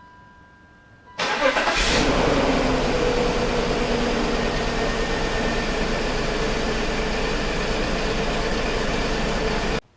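2004 BMW X5 engine cranking and starting about a second in, then idling steadily; it has just had its cylinder 2 and 3 ignition coils swapped to test a suspect coil behind a misfire. Before the start, faint steady tones; the sound cuts off suddenly near the end.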